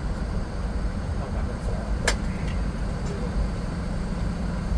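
Steady low cabin rumble inside a Boeing 717 taxiing in, its rear-mounted Rolls-Royce BR715 engines at idle under the hiss of the cabin air. A single sharp click about two seconds in.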